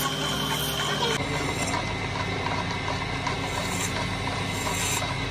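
Belt-driven lathe and its electric motor running with a steady hum while a lacquered wooden tabletop spins on it. The sound shifts abruptly about a second in.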